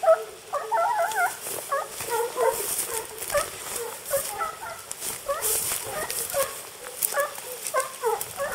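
A pack of hunting dogs baying and yelping over and over, giving tongue as they work a wild boar, with brush rustling against the camera now and then.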